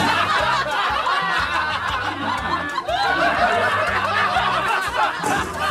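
Rapid, high-pitched snickering laughter over background music with a low, stepping bass line.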